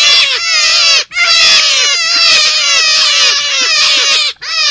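Forest rabbit calls from a lure recording: a fast run of high notes, each falling in pitch, about three a second, broken by brief gaps about a second in and near the end.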